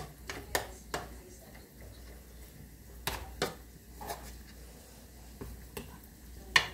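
A metal spoon clinking and scraping against an aluminium bowl about eight times at uneven intervals, the loudest near the end, as grated raw cassava batter is scooped out for one more fritter, over faint frying in hot oil.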